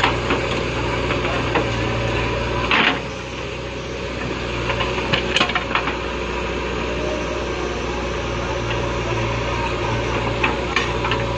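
Backhoe loader's diesel engine running steadily under work, with scattered knocks and clanks from the backhoe bucket and arm as it digs soil. A brief rush of noise comes about three seconds in, and a cluster of sharp knocks around five to six seconds.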